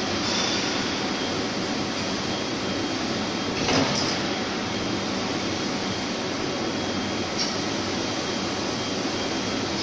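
Steady mechanical hum and hiss of an automated robot-arm production cell running, with a brief louder burst of noise about four seconds in and a smaller one near the end.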